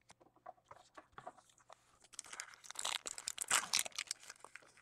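A trading-card pack wrapper being torn open and crinkled by hand: scattered crackles that build to a dense crinkling about three seconds in, then ease off.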